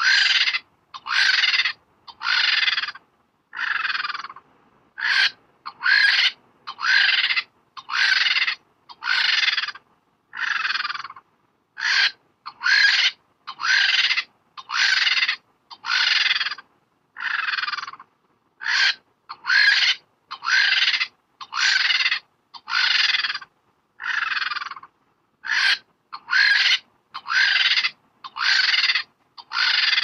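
Lappet-faced vulture calling over and over, about one short call a second, many of the calls sliding down in pitch.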